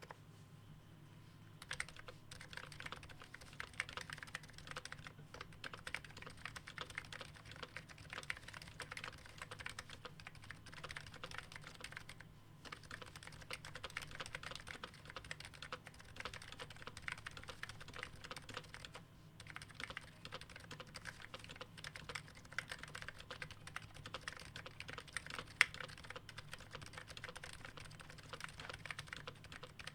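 Typing on a Topre keyboard: a steady stream of fast keystrokes starting about two seconds in, with two short pauses and one louder key hit near the end.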